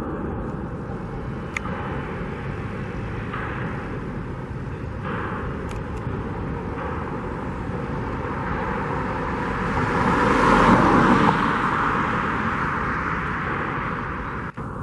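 Road traffic noise: a vehicle passes close by, swelling to its loudest about ten seconds in and then dropping away quickly.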